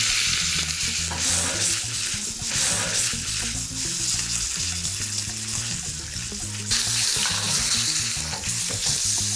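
Thick striploin steak sizzling in hot garlic oil in a pan while it is turned with tongs to sear every side. The sizzle swells about seven seconds in.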